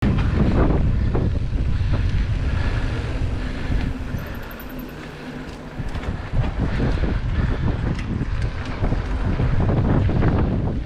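Wind buffeting a GoPro microphone on a moving mountain bike, with tyre noise on a dirt singletrack and scattered rattles and ticks from the bike over bumps. It eases for a couple of seconds around the middle.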